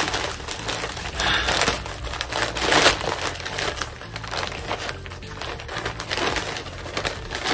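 Parcel packaging crinkling and rustling in the hands as a package is opened, in irregular bursts that are loudest about one to three seconds in.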